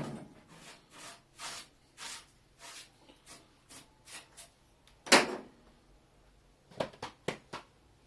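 Hand sanding strokes, about two a second, with one louder stroke about five seconds in, then a few sharp knocks near the end.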